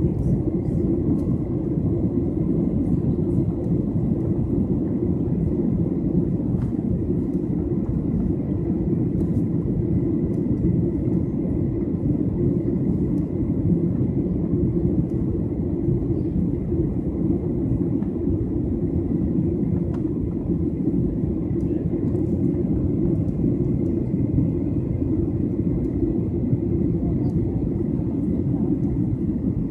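Jet airliner cabin noise heard from a window seat over the wing in flight: a steady deep rush of engine and airflow noise, with a faint thin whine held high above it.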